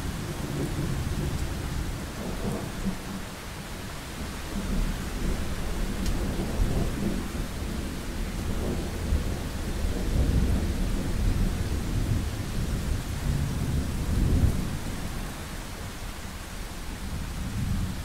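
Thunder rumbling over a steady hiss of summer rain, the deep rolls swelling and falling and loudest about three-quarters of the way through.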